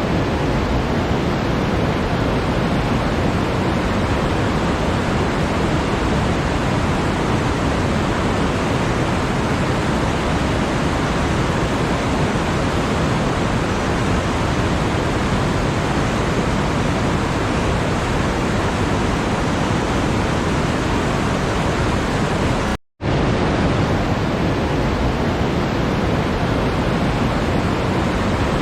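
Steady, even rushing noise with no tone or rhythm, like pink noise or falling water, cutting out for a split second about 23 seconds in.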